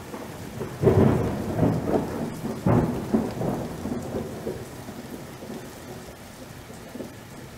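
Sound effects of an animated video intro: two deep booms, about a second and about two and a half seconds in, with smaller hits between them, each dying away in a long rumble that fades out.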